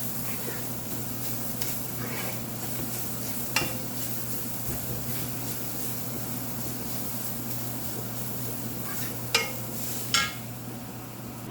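Ground spice paste sizzling in hot sesame oil as it is roasted and stirred in a pot, with a steady low hum underneath. The spoon clinks sharply against the pot three times, about a third of the way in and twice near the end.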